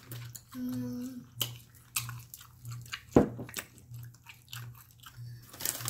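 Close-up chewing and wet mouth noises of people eating, with lip smacks and small clicks, one louder click about three seconds in.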